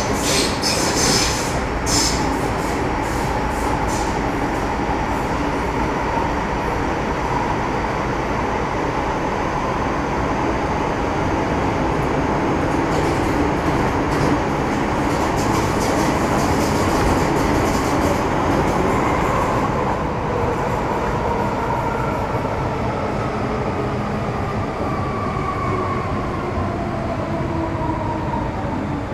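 Running sound of an MTR Metro Cammell M-Train EMU (C192, CT-stock) with GEC GTO chopper traction, heard from inside the car: a steady rumble of wheels and motors, with faint high-pitched wheel squeal near the start and again around the middle. In the last third the traction tones fall steadily in pitch as the train slows.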